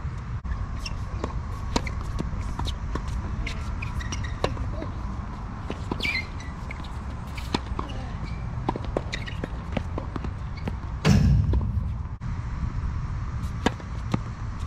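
Tennis play on an outdoor hard court: scattered sharp taps of tennis balls bouncing and being struck, and footsteps on the court, over a steady low rumble. A louder burst of noise comes about eleven seconds in.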